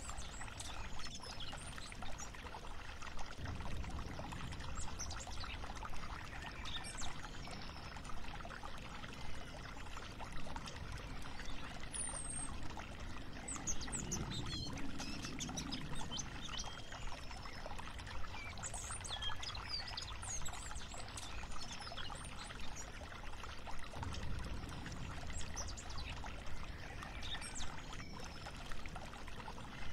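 Steady flowing water with birds chirping now and then.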